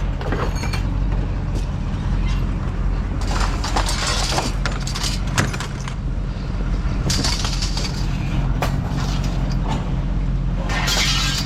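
Vehicle engine idling steadily with a low hum, over intermittent clatter and knocks from things being handled, with noisy bursts around four seconds in, around seven seconds in and near the end.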